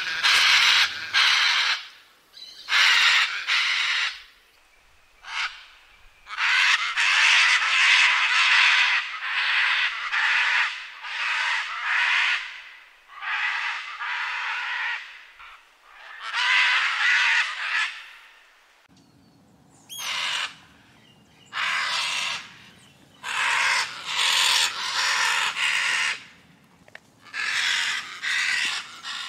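Scarlet macaw giving a long series of harsh, raspy screaming calls, each under a second to about two seconds long, separated by short pauses.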